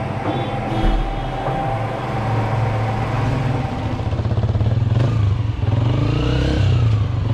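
Motor vehicle engine running with a steady low rumble, getting a little louder about four seconds in.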